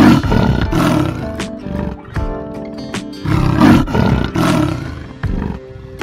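Leopard growling in two rough, pulsing bouts, the first at the start and the second about three seconds in, over background music.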